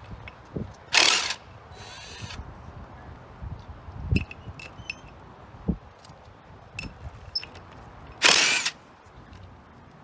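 A power tool with a socket spinning out wheel lug nuts in two short bursts, about a second in and again near the end, with clicks and clinks of the metal nuts and socket and a couple of dull knocks between.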